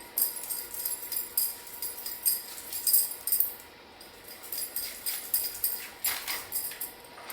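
Metal bracelets clinking lightly on a moving wrist, a fine steady jingle, with a brief louder rustle about six seconds in.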